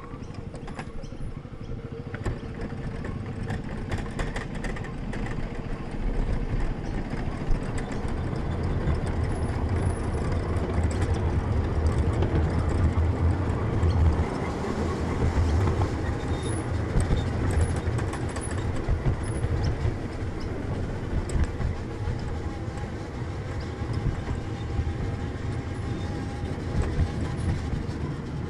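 Ride-on miniature train rolling along its track: a steady rumble of wheels on rails with occasional clicks, growing louder toward the middle.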